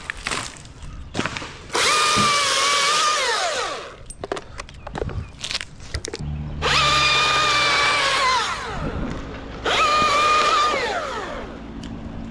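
Husqvarna T540i battery top-handle chainsaw revved in three bursts, each a steady high whine that winds down in pitch as the trigger is let go.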